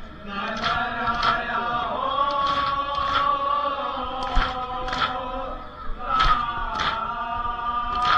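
Men chanting a Muharram nauha together in long held notes, while mourners beat their chests in matam: sharp hand-on-chest slaps in pairs, a pair about every two seconds.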